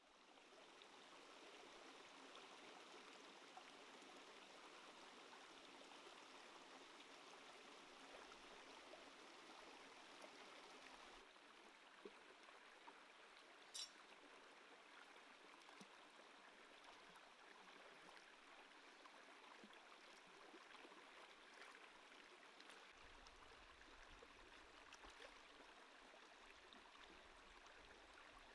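Shallow rocky stream flowing, faint and steady, with one brief high-pitched sound about halfway through. Near the end, water splashes as a plucked chicken is washed in the stream.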